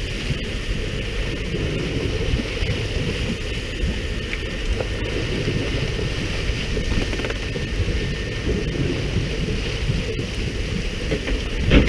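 Steady noise of a fishing boat at sea: the boat's engine running low, wind on the microphone and the hiss of the bait-boat water spray splashing on the sea surface beside the hull. A brief louder knock sounds near the end.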